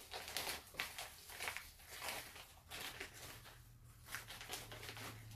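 Plastic snack packet being torn open and handled: a run of faint, irregular crinkles and crackles as a corn roll is pulled out of it. A faint low hum sets in about halfway through.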